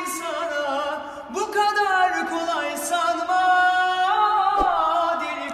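A young man singing unaccompanied in Turkish pop style, holding long, wavering notes in a few drawn-out phrases.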